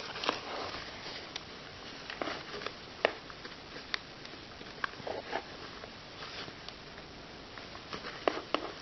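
Hands handling a small fashion doll and its denim doll clothes: soft fabric rustles with scattered small clicks and taps, a few louder clicks near the end.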